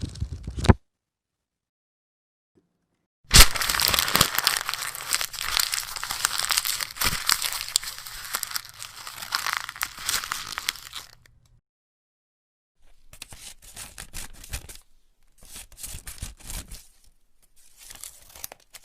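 Paper being handled: a short clip ends in a sharp snap just after the start. After a pause comes a long, dense stretch of paper crackling from about three to eleven seconds in. After another pause come several short bursts of paper noise.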